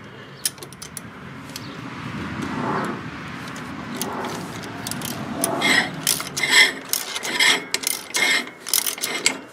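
Socket ratchet working a 13 mm bolt on a riding mower's variable-speed pulley: a rubbing scrape in the first half, then a run of repeated pawl clicks through the second half. The pulley turns with the bolt, so the bolt is not drawing tight.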